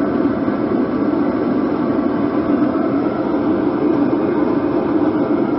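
Heater running with a steady, unbroken drone.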